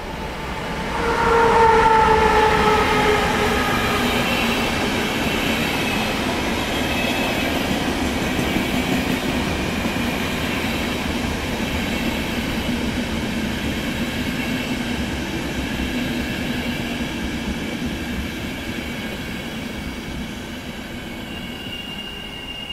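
Electric-hauled express train passing through a station. The locomotive's horn sounds loudly about a second in, sliding slightly down in pitch as it passes. The coaches then roll by with a steady rumble and wheel noise that slowly fades, and a thin high squeal starts near the end.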